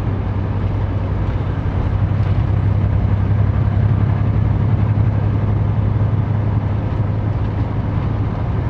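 Semi-truck's diesel engine and road noise: a steady low drone at slow cruising speed on a snowy highway.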